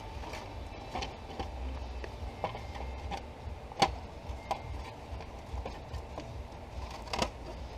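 Scattered light clicks and knocks of plastic interior trim being handled and pried at. The loudest comes about four seconds in and another near the end, over a low steady hum.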